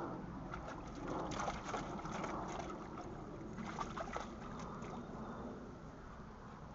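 A dog's paws splashing and sloshing through shallow water in a plastic kiddie pool, a run of short splashes through the first few seconds, then quieter as the dog steps out onto the grass.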